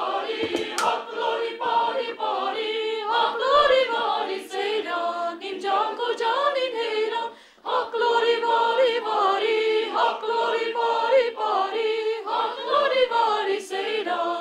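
A chamber choir singing unaccompanied in several parts, voices holding long notes together. The singing breaks off briefly about seven and a half seconds in, then carries on.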